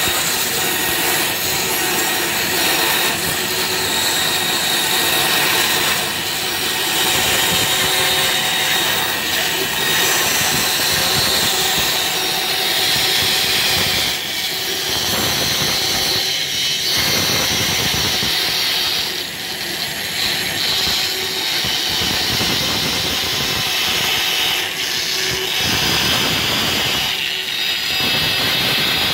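Bandsaw running and cutting through a stack of plywood along a curved line, a steady loud whir and rasp that eases off briefly a few times as the cut goes on.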